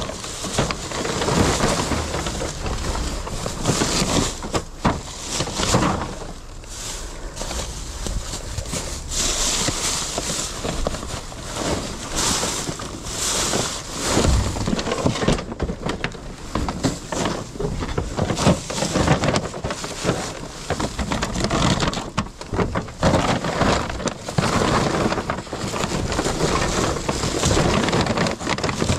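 Black plastic trash bags rustling and crinkling as they are handled and dug through, with scattered knocks and clatters of items shifting.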